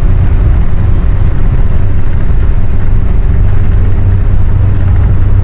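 Steady engine drone and road noise of a moving vehicle, heard from inside the vehicle: an even, unbroken low hum.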